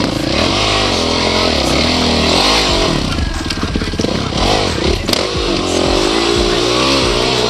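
Dirt bike engine revving up and down over and over, its pitch rising and falling as the throttle is worked, with a sharp knock about five seconds in.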